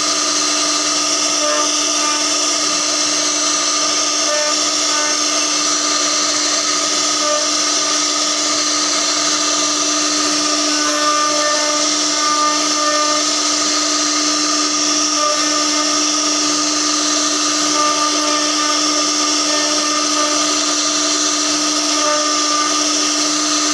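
CNC router spindle with a carving bit milling a relief pattern into a wooden door panel: a steady, high-pitched whine mixed with the hiss of the bit cutting wood.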